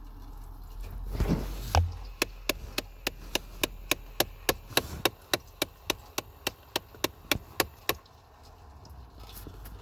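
The ticking from behind the glove box of a 2011–2014 Ford Explorer's dash: a run of about twenty sharp, evenly spaced ticks, roughly three or four a second, starting about two seconds in and stopping about two seconds before the end. Just before the ticks, a thump.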